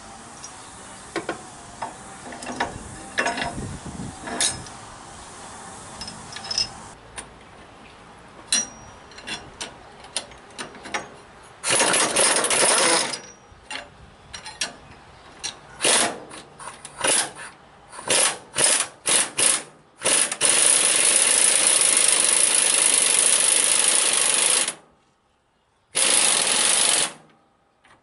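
Steel washers and a socket clinking as they are fitted onto a bolt, then a pneumatic impact wrench hammering in short bursts and one long run of about four seconds. It is spinning a 3/4-inch bolt fitted with washers to draw a new leaf spring bushing into the spring eye.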